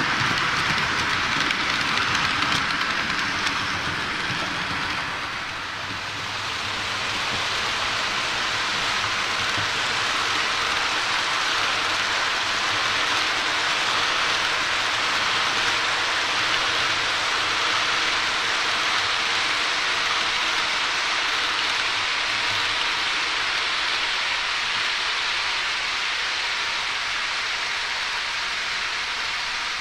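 H0-scale model trains running over the layout's track, making a steady hiss. The first is a freight train of car-carrier wagons. After a short dip about five seconds in, a rolling-highway train carrying trucks on low wagons runs by.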